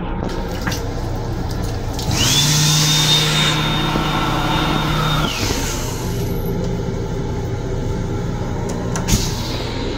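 Small blower motor of the built-in hand dryer in an M7 railcar's sink unit running for about three seconds, its whine rising as it starts and falling away as it stops, over the steady running noise of the train. A single sharp click near the end.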